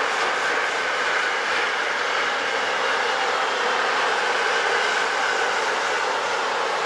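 Double-deck car-carrier freight wagons rolling past on the rails, a steady, even rush of wheel and rail noise with no distinct clicks.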